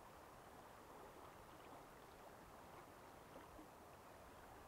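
Near silence: a faint, steady rush of flowing river water.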